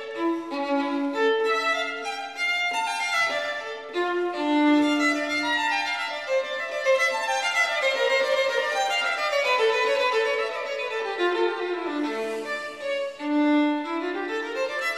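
Instrumental background music: a melody of held notes and quick runs, all above the low bass range.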